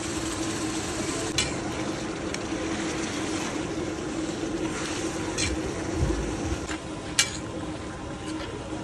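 Masala gravy sizzling on a large flat tawa as a slotted metal spatula stirs paneer cubes through it, with a few sharp clicks of the spatula against the griddle, the loudest about seven seconds in. A steady low hum runs underneath.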